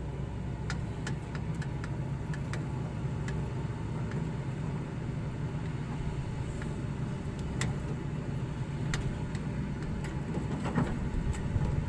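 Excavator's engine running steadily, with scattered sharp clicks and knocks over it that grow busier and a little louder near the end.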